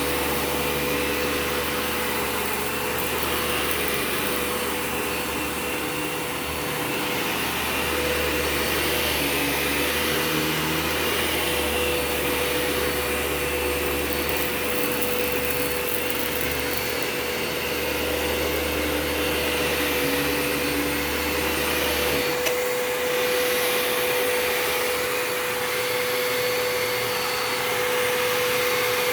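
Eureka TheBoss 4D upright vacuum cleaner running steadily, its motor whining at one pitch. A low rumble underneath drops away about 22 seconds in.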